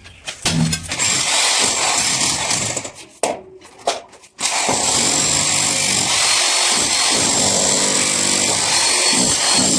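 A power tool running steadily with a faint high whine. It stops briefly about three seconds in and starts again about a second later.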